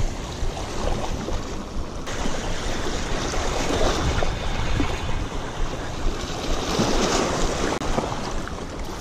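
Small waves washing and splashing against the rocks of a jetty, with wind buffeting the microphone.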